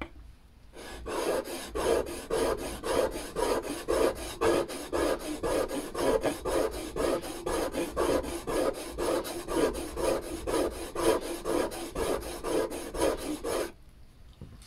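Steel chisel bevel being honed on a DMT DuoSharp diamond whetstone kept wet: quick back-and-forth rubbing strokes of the blade across the diamond plate, about three a second. The strokes start about a second in and stop about a second before the end. This is the sharpening stage after grinding, bringing up an edge.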